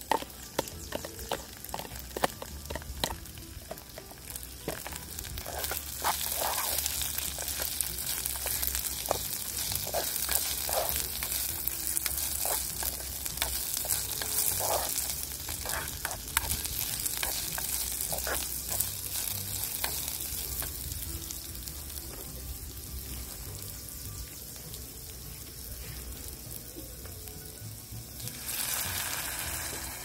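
Food sizzling as it fries. Scattered crackling pops come first; about six seconds in a loud, high sizzling hiss comes in. The hiss eases after about twenty seconds and flares again briefly near the end.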